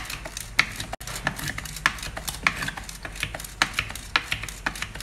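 A wire whisk beating cake batter by hand in a steel bowl, with a steady stream of quick clicks and taps, a few each second, as the wires knock against the bowl.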